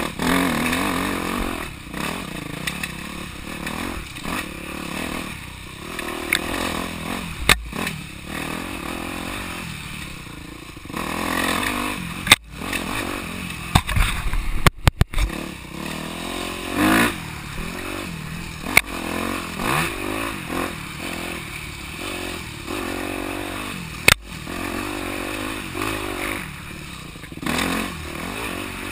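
Dirt bike engine revving up and down over and over as the rider works the throttle along a rough woods trail. Several sharp knocks cut through it, a cluster of them around the middle, as the bike and helmet camera jolt over bumps.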